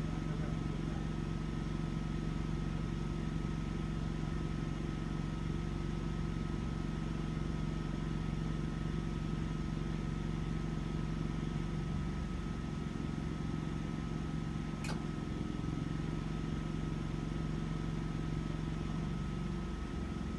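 Standby generator engine running steadily, a low pitched hum whose tone shifts about twelve seconds in and again near the end. There is a single sharp click about fifteen seconds in.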